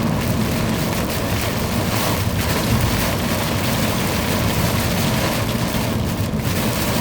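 Heavy downpour during a severe thunderstorm: rain pouring hard and steadily, a loud, even wash of noise with a constant low rumble underneath.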